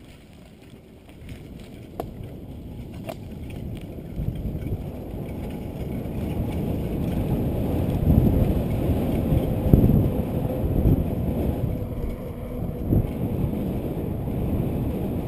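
Wind rushing over the microphone and the rumble of a mountain bike riding a rutted dirt track, getting louder over the first half and staying loud. Two sharp clicks about two and three seconds in.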